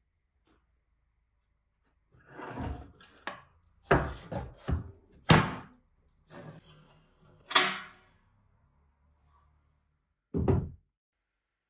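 Hollow wooden knocks and thuds from an old wooden chest being handled, its lid shut and the metal hasp chain on it moved. The impacts come as an irregular cluster in the middle, then one last thud near the end.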